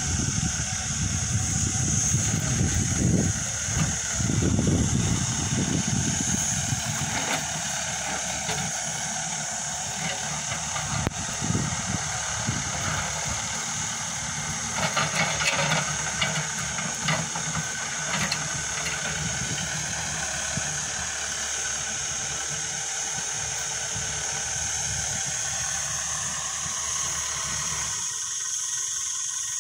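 Backhoe loader's diesel engine running, a low rumble under a steady high hiss. The rumble is strongest in the first several seconds and drops away near the end.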